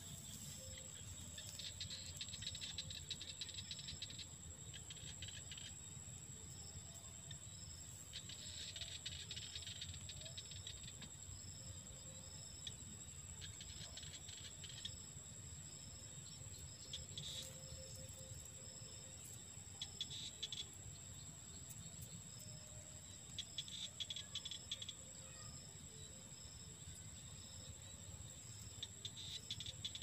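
Insects calling in a wet field: a steady high-pitched whine with a short chirp repeating about once or twice a second, and bursts of rattling every few seconds.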